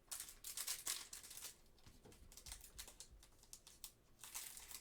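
Trading cards being handled and slid through by hand, a faint run of quick crisp clicks and rustles, busiest in the first second and again near the end.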